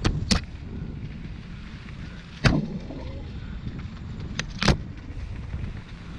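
Lapierre Zesty mountain bike rolling down a dirt singletrack: a steady rumble of wind on the microphone and tyres on dirt. It is broken by about five sharp knocks as the bike jolts over bumps, two at the start, the loudest about two and a half seconds in and two close together near the end.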